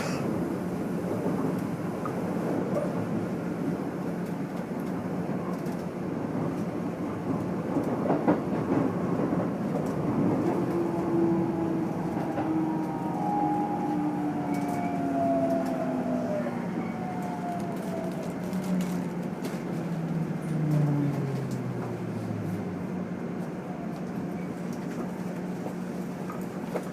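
Keikyu N1000-series electric train heard from inside a motor car: running noise with rail-joint clicks, then from about ten seconds in the Toyo IGBT VVVF inverter and MB-5121-A traction motor tones fall steadily in pitch for about ten seconds as the train brakes for a station stop.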